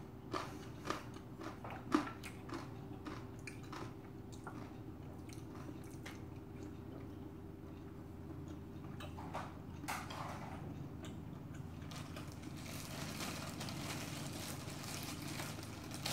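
Close-miked chewing of crunchy pork cartilage (odolbbyeo) with rice: sharp crunching bites in the first few seconds, then quieter steady chewing, with a soft rustling hiss over the last few seconds.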